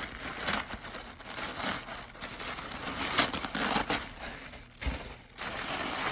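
Packing material crinkling and rustling as a shipping box is unpacked by hand, in dense crackly handfuls with a short pause just before five seconds in.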